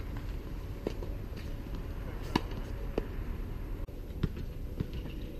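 Tennis rally on a hard court: sharp pops of racket strikes and ball bounces, roughly one every half second to second, the loudest about two seconds in, over a steady low rumble.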